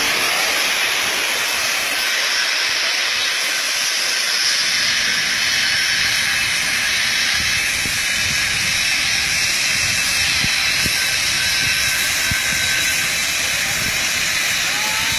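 Steady hissing rush of shelled corn pouring out of a collapsed overhead grain tank, holding an even level throughout, with a few faint knocks partway through.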